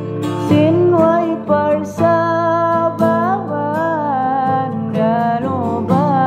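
A song in Tausug: a voice singing long, held melodic lines over an instrumental backing with a steady beat.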